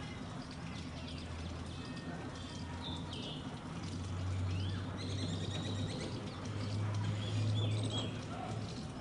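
Birds chirping briefly several times over a steady low hum that swells about four seconds in and again near the end.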